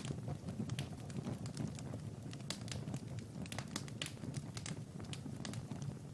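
Wood fire crackling in a fireplace: irregular sharp pops and snaps, several a second, over a steady low rumble of flame.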